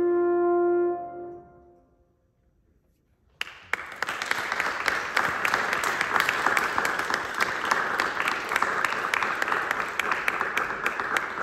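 A French horn's final held note dies away about a second in. After a short silence, audience applause starts about three seconds in and goes on steadily.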